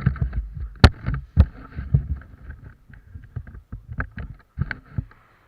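Irregular knocks and rustling close to the microphone, with two sharp clicks about a second in; the sound fades out near the end.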